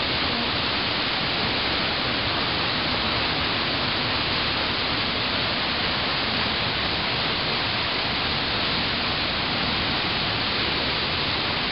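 Steady, even rushing noise with no breaks or separate events.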